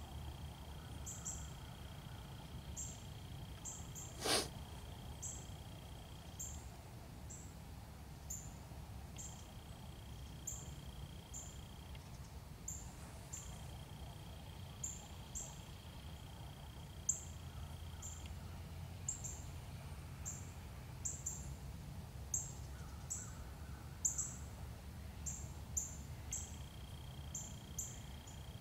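Woodland ambience: short high chirps repeat a little more than once a second over a steady high whine that stops and starts. There is one sharp snap about four seconds in, and a low rumble underneath.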